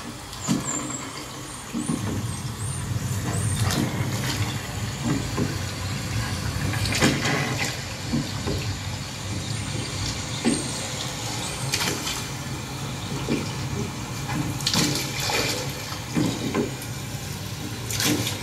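Sound playing back from a Sony CDP-CX355 300-disc CD changer: a steady rushing noise with brief louder surges every few seconds.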